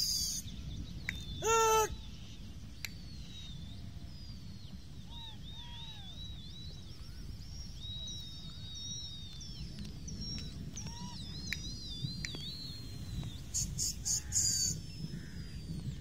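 Open-country ambience with a steady low wind rumble and many small birds calling: high whistles, trills and falling chirps, joined by one loud short call about a second and a half in and a quick run of high clicks near the end.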